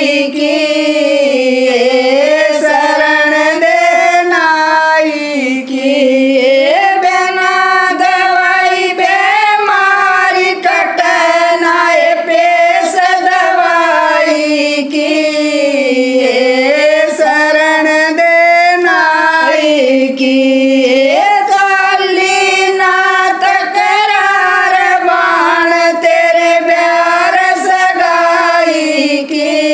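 Three women singing a Haryanvi jakdi folk song together in unison, unaccompanied, in one continuous melodic line.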